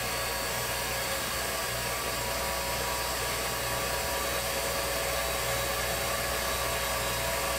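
SuperATV electric winch on a Polaris Ranger, its motor running steadily as it spools cable.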